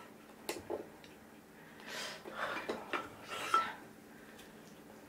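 Two light clicks of wooden chopsticks, then a wooden spoon scooping through kimchi stew in a ceramic pot, with soft scraping and quiet breaths.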